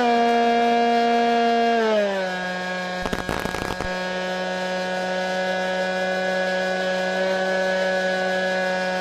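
Multiplex Easy Star's electric pusher motor and propeller whining, heard from the plane's onboard microphone. The pitch steps down about two seconds in as the throttle is pulled back, then holds steady. About three seconds in there is a brief crackle of noise lasting under a second.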